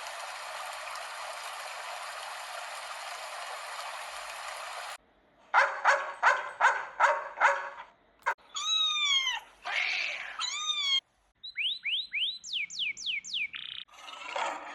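A run of separate sound effects. First comes about five seconds of steady hiss. After a short gap, a string of short animal calls follows, among them drawn-out, falling cat meows, and then a quick series of high, falling chirps.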